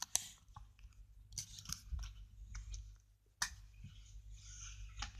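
Faint knocks, taps and rustling close to the microphone: the tablet being handled and knocked. There are a handful of separate sharp taps, and soft rustling after about three and a half seconds.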